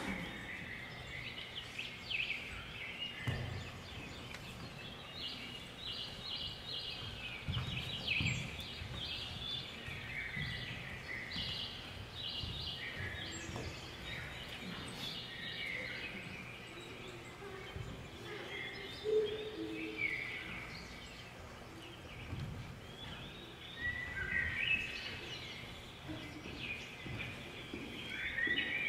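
A chorus of birds chirping and trilling in quick, overlapping high calls, with a dull thump of bare feet on the wooden floor now and then.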